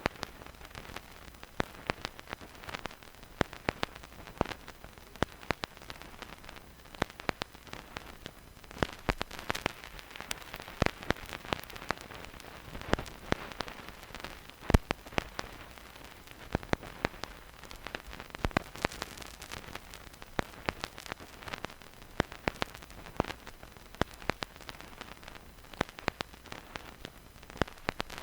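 Vinyl record surface noise with no music: a stylus riding the groove, giving irregular crackles and pops, several a second, some much louder, over a steady soft hiss.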